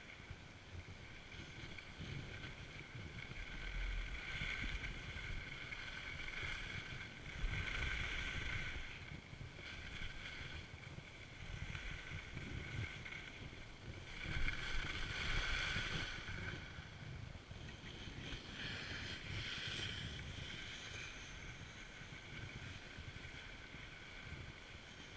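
Skis sliding and scraping over groomed snow, swelling and fading every few seconds, with wind buffeting the body-mounted camera's microphone.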